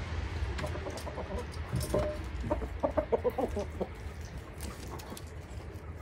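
Domestic hens clucking, a run of short calls bunched together about two to four seconds in, with scattered light clicks.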